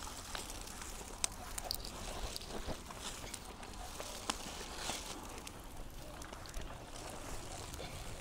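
Quiet outdoor ambience: a steady low wind rumble on the microphone, with scattered faint clicks and ticks.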